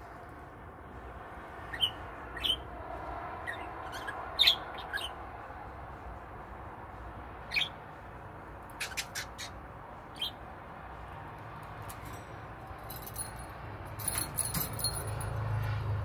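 Pet budgerigar giving short, sharp single chirps every second or two, the loudest about four and a half seconds in, followed by a cluster of clicks and rustling near the end.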